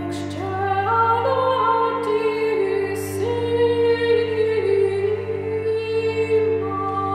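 A woman singing a slow medieval plainchant melody over a steady low cello drone. Her line climbs note by note in the first second or so, then moves slowly between long held notes.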